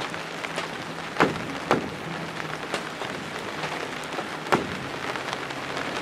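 Steady rain falling, with single louder drops striking close by now and then, and a faint low hum underneath.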